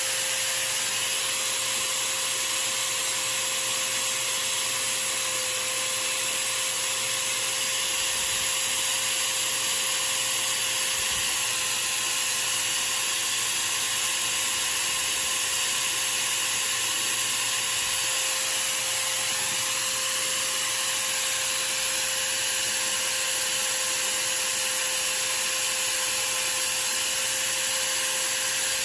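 A small power tool's motor running steadily with a constant whine, spinning a slug blank in its chuck while a hand file and then sandpaper rub against the turning piece.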